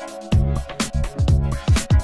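Background music: electronic dance track with a steady kick-drum beat under sustained synth chords.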